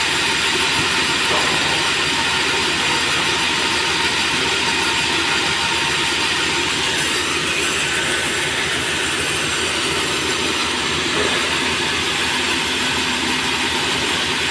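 Sawmill machinery running steadily and loudly: a large band saw headrig and its roller conveyor line, with merbau hardwood boards being sawn and carried along the rollers.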